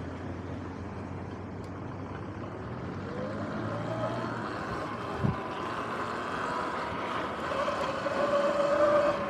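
Sur-Ron X electric dirt bike's motor whining as it rides, rising in pitch as it speeds up and growing louder near the end, over steady tyre and wind noise. There is a single thump about five seconds in.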